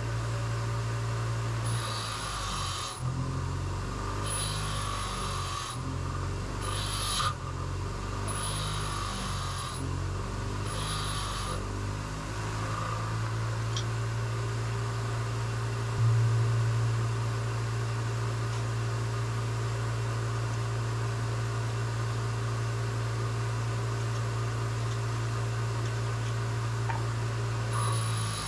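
Steady low machine hum throughout, with a power tool whirring in about five short bursts of a second or so during the first half.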